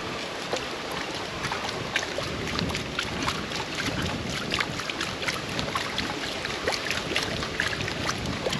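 Stream water splashing and sloshing as people wade and work a hand scoop net, with many small sharp splashes and clicks scattered through a steady rush of water.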